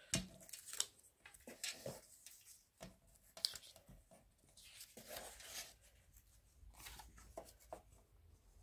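Faint rustling of patterned scrapbook paper being handled and pressed against a card drawer box, with scattered small taps and crinkles.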